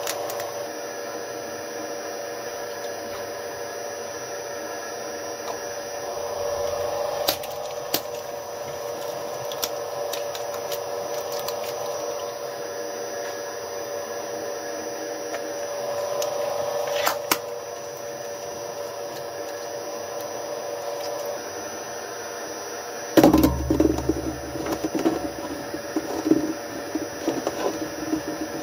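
Electric twin-shaft shredder running with a steady motor whine, broken by a few sharp cracks as pieces catch in the cutters. Late on, a sudden loud burst of crunching and rattling starts as the blades chew into a new load, and it keeps going.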